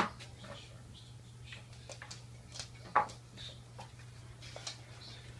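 A kitten batting and pouncing on a small toy mouse across a tiled floor: scattered light clicks, taps and scratches, with a sharp knock at the start and a louder one about three seconds in.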